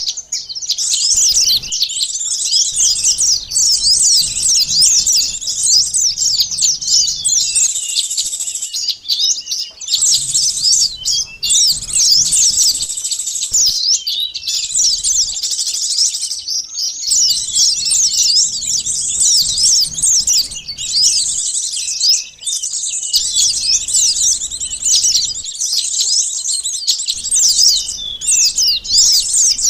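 Sunbirds chirping in a dense, fast, high-pitched chatter of many overlapping calls, a lure recording meant to draw in small birds.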